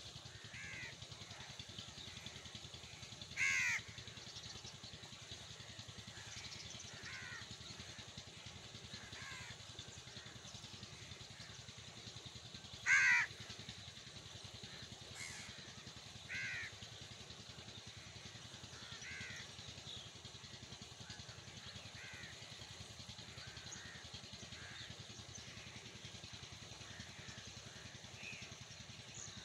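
House crows cawing: about a dozen short single caws spaced a second or more apart, two of them much louder, about three and a half and thirteen seconds in.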